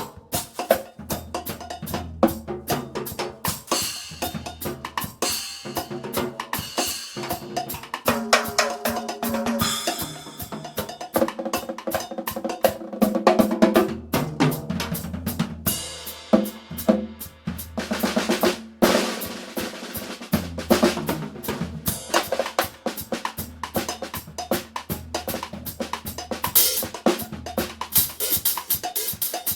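Drum kit being played: snare and bass drum strokes with cymbals, in a dense, fast rhythm.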